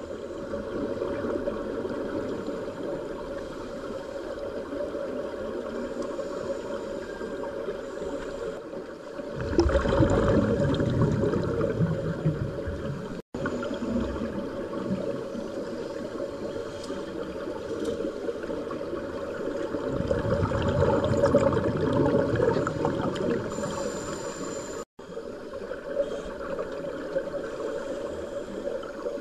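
Underwater sound of scuba divers breathing through their regulators: a steady rushing, gurgling noise, with two louder bursts of exhaled bubbles, each lasting a couple of seconds.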